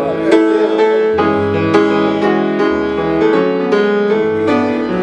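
Grand piano playing a slow hymn accompaniment on its own: held chords over a moving bass line, with no voice.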